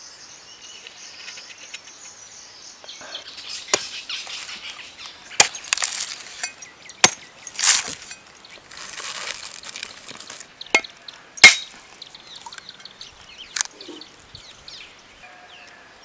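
A machete chopping and striking a coconut: about six sharp blade strikes, the loudest near the end of the second third, with rasping between them as the fibrous husk is cut and pulled away. The later strikes land on the husked nut's hard shell.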